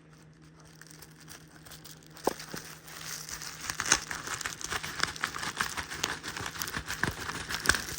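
Packaging being handled, crinkling and rustling in quick crackly bursts that start about two seconds in and grow busier.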